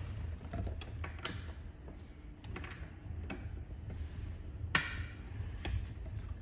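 Scattered small clicks and knocks of a cable plug being handled and fitted into a socket on a laser welding machine's panel, the sharpest knock a little under five seconds in, over a steady low hum.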